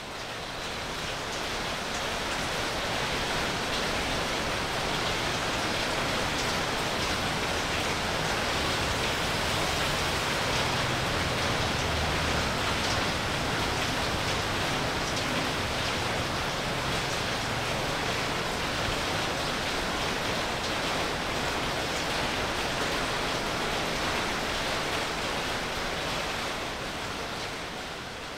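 Steady, even rushing noise with no distinct events, fading in at the start and easing down near the end.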